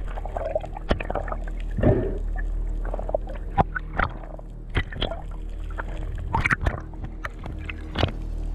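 Underwater ambience picked up by a diving camera: scattered sharp clicks and crackles and a few short gurgles of bubbles over a steady low drone.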